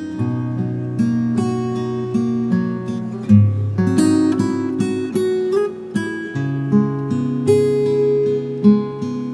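Relaxing acoustic guitar music: slow plucked and strummed chords over held bass notes.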